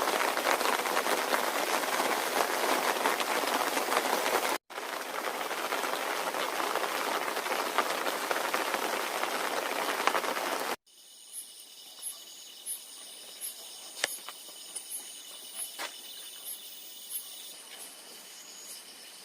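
A loud, even rushing hiss that cuts off abruptly twice. It gives way to quieter night insects: a steady high-pitched chorus with crickets chirping in a regular pulse, a little more than once a second.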